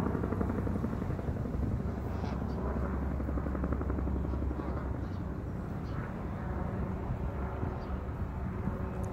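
Helicopter running steadily, a low rumble with rapid rotor chop.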